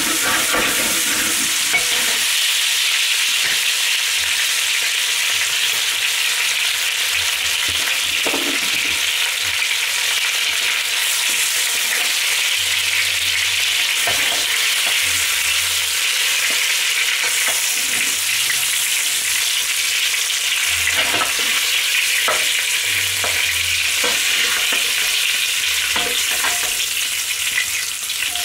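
Chicken pieces sizzling steadily in hot olive oil in a heavy pot as they are sealed and lightly browned, with now and then the brief scrape or knock of a spoon against the pot as pieces are turned and lifted out.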